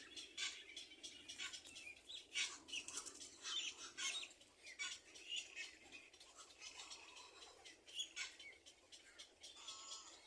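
Small birds chirping: short, high chirps and rustles come irregularly throughout.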